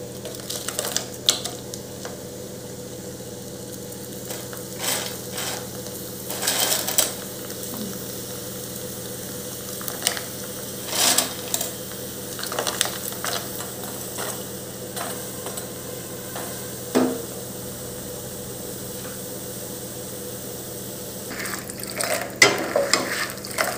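Tapioca chips deep-frying in hot oil: a steady sizzle, with scattered clinks and knocks of a metal spoon against the pan, more of them near the end.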